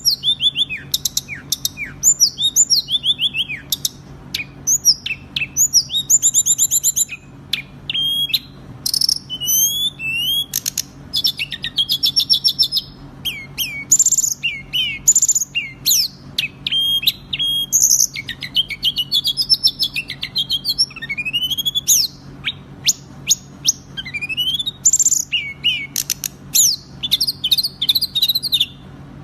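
Songbird song played as a fast, dense training recording: a rapid, unbroken run of varied chirps, trills, rising and falling whistles and rattles.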